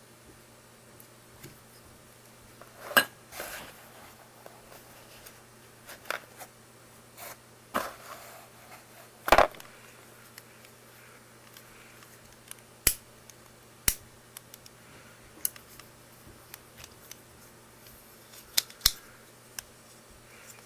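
Irregular sharp clicks and knocks of hard plastic parts being handled and fitted together, about a dozen, a few much louder than the rest, over a faint steady mains hum.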